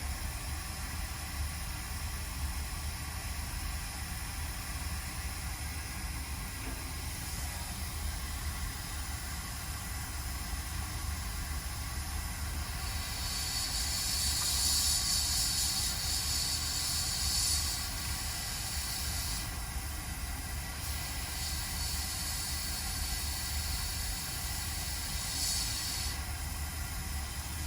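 Hot air rework station blowing over a circuit board: a steady hiss over a low hum. The hiss grows louder and higher for a few seconds about halfway through, and again more weakly near the end.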